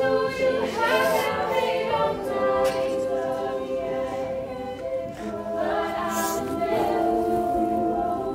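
Music: voices singing together in harmony, with long held notes.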